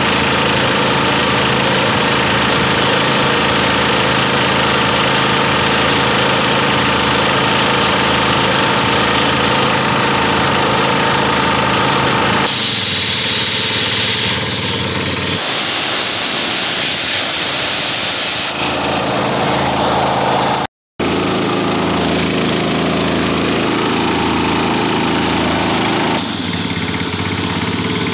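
Honda GX160 single-cylinder engine running a Rolair air compressor pump steadily. About twelve seconds in, air begins to hiss and the engine note drops: the pressure release valve has kicked in at cut-out pressure and the engine idles down. It then runs on at idle, with more hissing near the end.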